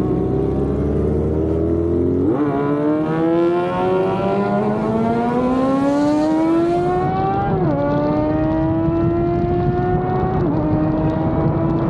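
Yamaha FZ6 Fazer 600 motorcycle engine accelerating through the gears. Its pitch rises steadily, then drops sharply at each of three upshifts.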